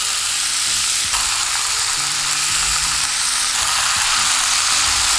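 Diced vegetables and tomatoes sizzling steadily in oil in a hot non-stick frying pan as crumbled tofu is added by hand.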